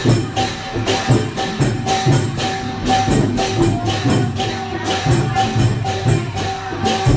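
Festive procession music with a quick, even beat of cymbal-like strokes over low drum hits and a steady held tone.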